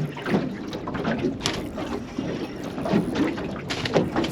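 Irregular clicks and knocks aboard a small fishing boat, over steady wind and water noise.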